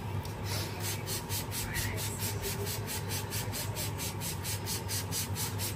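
Hands rubbing briskly through long hair and over the scalp in a head massage: a rhythmic scratchy rustle of about five strokes a second, going on steadily.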